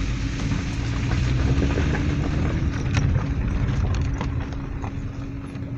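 Car driving along a narrow, rough mountain road: a steady engine hum, with small clicks and knocks from the tyres and the body going over the uneven surface.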